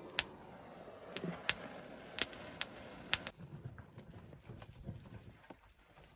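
About six sharp, irregular knocks or clicks over the first three seconds, over a faint steady hiss that drops away soon after.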